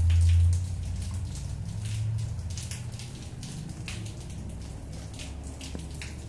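Light rain falling on a concrete patio and plants, scattered drops pattering and dripping. A short low rumble in the first half-second is the loudest sound.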